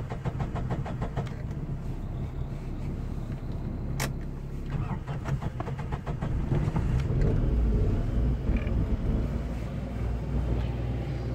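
Suzuki Khyber's small three-cylinder engine and tyre noise heard from inside the cabin as the car accelerates, growing louder from about six seconds in. A single sharp click about four seconds in.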